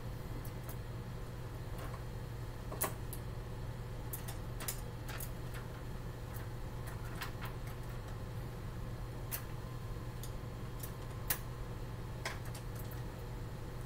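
Light, irregularly spaced clicks and taps from a paintbrush working on a plastic-wrapped paint palette, over a steady low hum.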